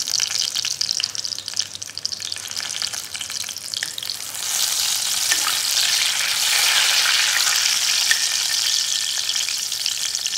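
Whole spices, green chillies and a bay leaf sizzling and crackling in hot oil in a steel kadhai while a steel spoon stirs them. The sizzle grows louder about four and a half seconds in.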